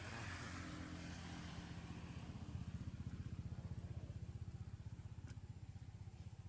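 A small engine running steadily off-screen with a rapid, even putter, growing a little louder and then fading toward the end.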